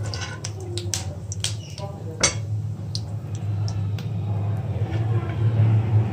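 Whole spices crackling and popping in hot oil in a steel pan during a tempering, with a metal ladle clicking against the pan. One sharp click comes about two seconds in. A steady low hum runs underneath.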